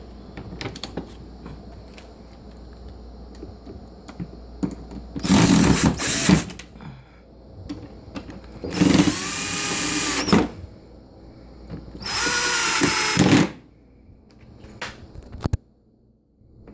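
Power drill-driver running in three bursts of one to two seconds each, its motor whining, as it drives screws back into the dishwasher door.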